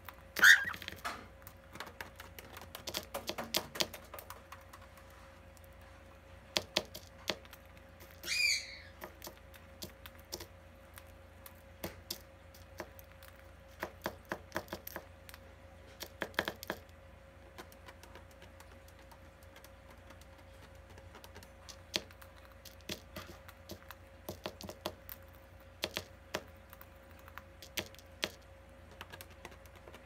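Cockatiels eating seeds from a clear plastic seed cup: a long run of small, irregular clicks from husking seeds and beaks tapping the cup. There is a short chirp just after the start and another about eight seconds in, over a faint steady hum.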